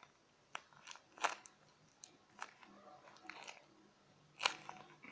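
A handmade paper squishy being handled and squeezed: faint, scattered paper crinkles and crackles, the loudest about four and a half seconds in.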